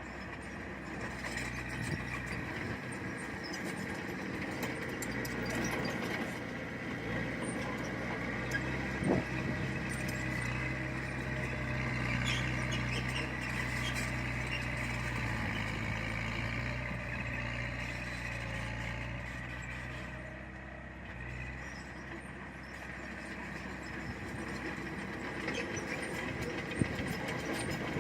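Diesel engine of heavy earthmoving machinery running steadily, louder through the middle, with scattered clanks and a sharp knock about nine seconds in.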